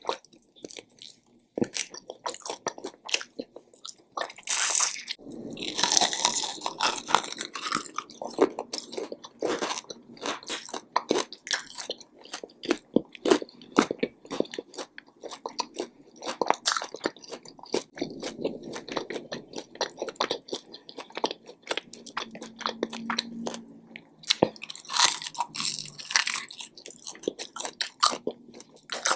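Close-miked chewing and biting of fried chicken wings: a steady run of bites and chews.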